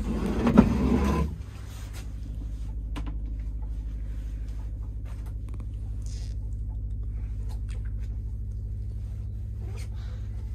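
An engine running steadily aboard the boat: a low, even drone with a fast regular pulse.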